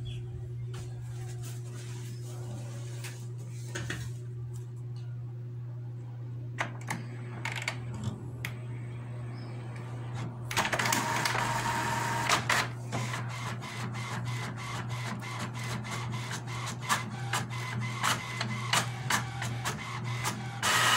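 HP DeskJet Plus Ink Advantage 6475 inkjet printer printing a page: a few scattered clicks as it starts up, a louder whirr about ten seconds in as the paper is drawn in, then a fast, regular run of clicks as the page goes through. It is printing again, the sign that Error E has cleared.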